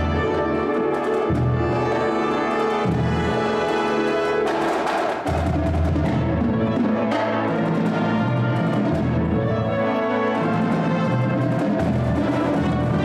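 Orchestral music with brass and timpani, played continuously, its bass notes changing every second or two.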